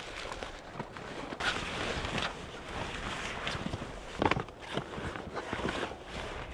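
Irregular rustling and soft knocks of camping gear being handled and laid out, with scattered louder bumps about four to five seconds in.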